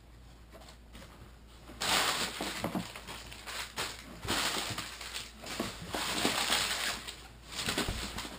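Packing paper rustling as hands dig through a cardboard shipping box, starting about two seconds in and going on in irregular bursts until near the end.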